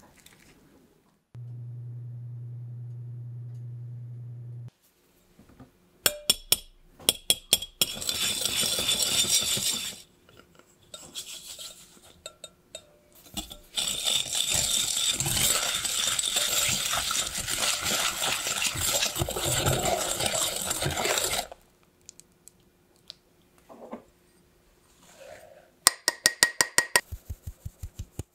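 A wire whisk beating egg yolk and sugar in a glass bowl, a steady scraping whisk for about eight seconds in the middle. It comes between a brief low hum near the start, scattered clicks and scrapes, and a rapid run of sharp taps near the end as cake flour is sifted through a sieve into the bowl.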